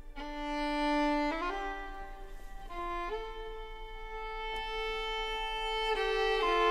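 Background music: a slow melody of long held notes, each lasting one to three seconds before moving to the next.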